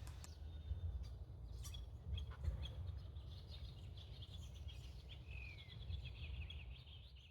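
Wild birds chirping and calling in many short notes, including a few brief falling calls, over a steady low rumble. The sound fades out near the end.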